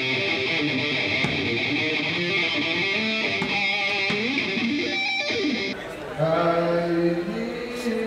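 Rock music with distorted electric guitars, notes bending in pitch; almost six seconds in it cuts abruptly to a different passage.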